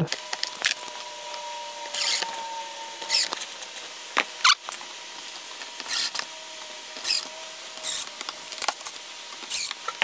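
Cordless drill-driver driving small screws to fasten cabinet hinges: a string of short whirs, each a fraction of a second, with small clicks of the metal hinge hardware in between.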